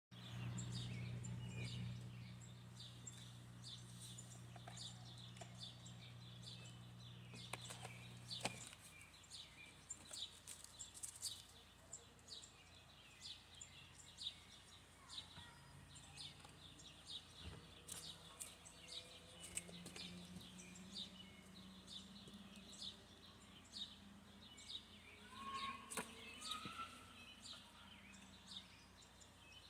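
Small birds chirping repeatedly in short high notes. A steady low hum in the first eight seconds or so cuts off with a click.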